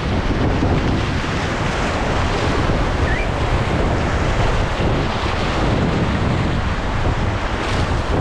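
Snake River whitewater rapids rushing steadily around a raft, with wind buffeting the microphone.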